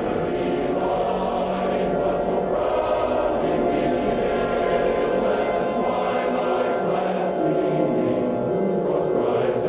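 A choir singing the national anthem in slow, sustained chords.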